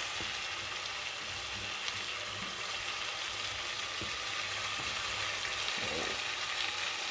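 Potatoes, mushrooms and onions frying in a pot with a steady sizzle, broccoli florets just added on top.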